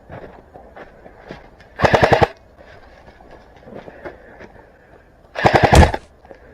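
Airsoft electric rifle (AEG) firing two short full-auto bursts of BBs, each a rapid rattle about half a second long, the first about two seconds in and the second near the end.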